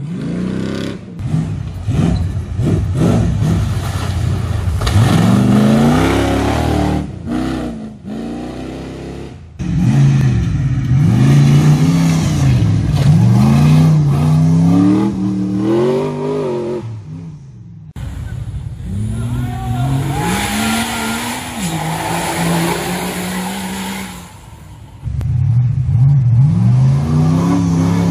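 Off-road 4x4 engines revving hard, their pitch climbing and falling again and again as the throttle is worked. The sound breaks off abruptly several times.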